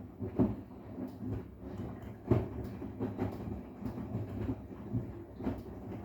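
Arçelik 10121 washing machine running a wash with a sofa cover in the drum: a low motor hum under irregular thumps and knocks as the load tumbles, with one louder thump about two seconds in.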